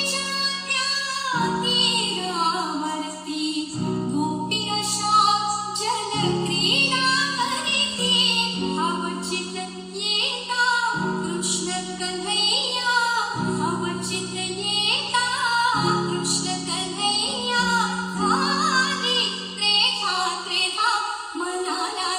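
A song with a woman singing, played through a tower speaker, over sustained low notes that change about every two seconds.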